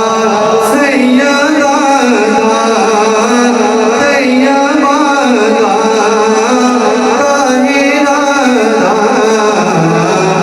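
Male voice singing a devotional naat, holding long, wavering ornamented notes.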